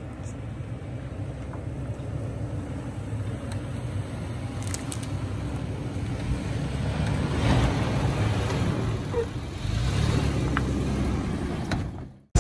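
Toyota 4Runner driving down a rocky dirt trail toward the listener: a steady engine rumble with the sound of tyres over dirt and rocks, growing louder as it comes closer. It cuts off suddenly near the end.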